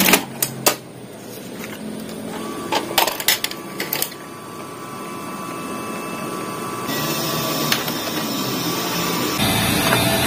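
HP LaserJet P1102 laser printer with its top cover clicked shut, then starting up and printing a test page after a toner refill. A few sharp clicks of the mechanism are followed by a steady motor whine and mechanical running that grows louder as the page feeds through.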